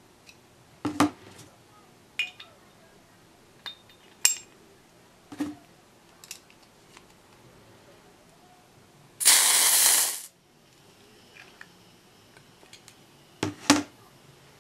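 Hard plastic and metal clicks and knocks as a CO2 capsule is fitted into a pistol magazine and screwed home with a hex key, then about a second of loud gas hissing a little past halfway as the capsule is pierced, cutting off sharply. A few more clicks near the end as the magazine is handled.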